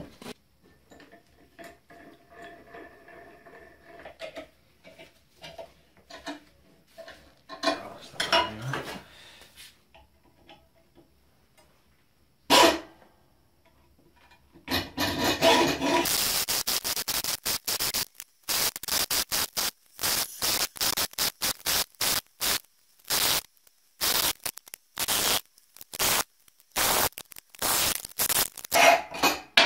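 Hand hacksaw cutting a 30 mm square steel bar, the blade rasping back and forth at roughly two strokes a second through the second half. Before that come the softer clatter of a G-clamp being set on the bar and a single knock.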